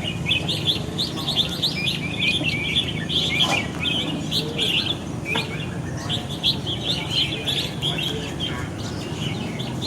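Caged red-whiskered bulbuls singing: a dense, unbroken run of short, quick chirping phrases, over a low steady hum.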